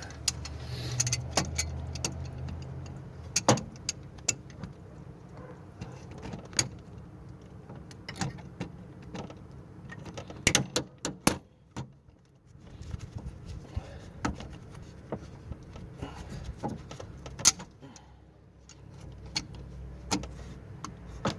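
Irregular sharp metal clicks and clanks of hand tools and parts being handled under a car's hood while working on corroded coolant hoses, over a faint low hum.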